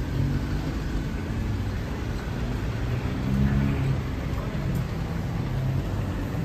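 Street traffic: car engines running at low speed, a steady low hum that swells louder about halfway through.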